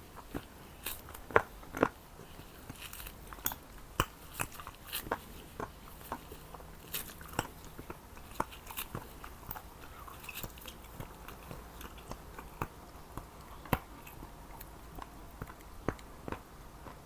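Close-miked eating of Jordanian mansaf: irregular wet chewing and mouth smacks with occasional crisper bites, the sharpest pair about a second and a half in.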